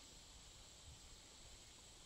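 Near silence: a faint, steady high hiss with no distinct events.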